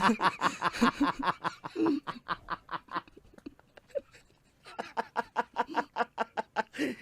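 Rapid, rhythmic laughter, a quick run of ha-ha pulses that breaks off briefly about four seconds in and then starts again.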